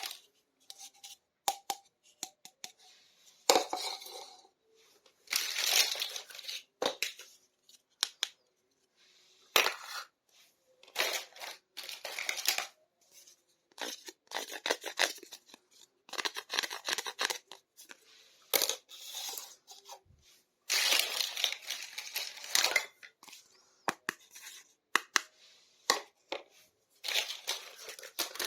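Unboxing of a small plastic toy kitchen set: packaging crinkling and tearing in short bursts, with sharp clicks and taps of small plastic pieces and brief silent pauses between them.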